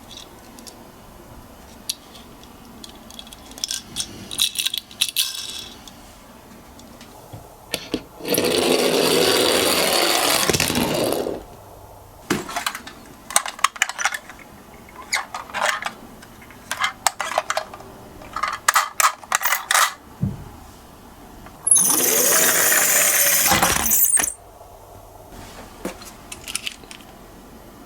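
Toy ambulance and bus miniature cars clattering and clicking against each other and a hard surface as they are handled. There are many short sharp clicks, and two longer spells of continuous rattling, about eight seconds in and again about twenty-two seconds in.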